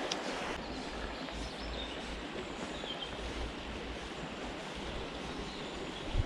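Steady rushing of a shallow river flowing over stones, an even outdoor wash with a low uneven rumble beneath it and a single faint click just after the start.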